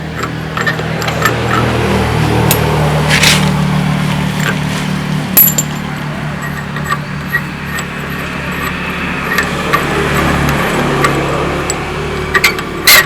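Metal clinks and clanks of tools and truck-wheel parts, a handful of sharp hits over a steady low machine hum.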